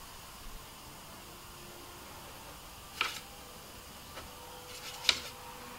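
A paintbrush clicking against a plastic watercolour paint box twice, once about three seconds in and once near the end, with a fainter tick in between, as paint is picked up from the pans.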